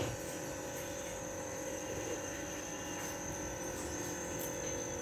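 A steady buzzing hum with a thin high whine above it, even in level throughout.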